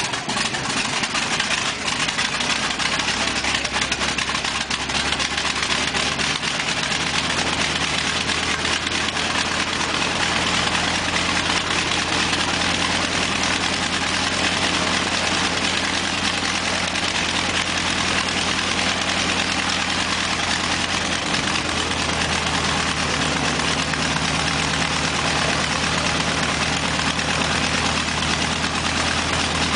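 B-25 Mitchell's Wright R-2600 twin-row radial engine just after start: ragged and uneven at first, settling into a steady idle about six seconds in. Its pitch steps up slightly about two-thirds of the way through.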